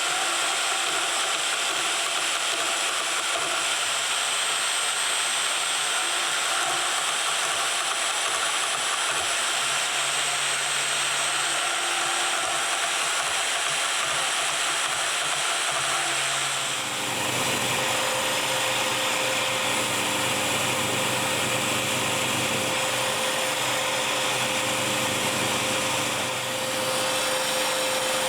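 A workshop power tool running steadily. About two-thirds of the way in its sound changes and a steady hum sets in.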